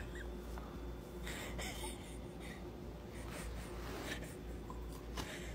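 Faint rustling and handling noise, with a few soft scratchy scrapes.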